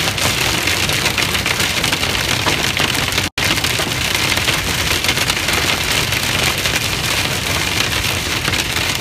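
Hail falling hard, a dense, steady clatter of countless small impacts over a low rumble. The sound cuts out for an instant about three seconds in.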